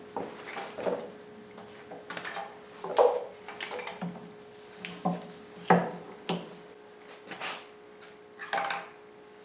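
Hand tools and metal engine parts clanking and knocking at uneven intervals during the teardown of a Chevy 350 small-block V8, about ten knocks, over a steady faint hum.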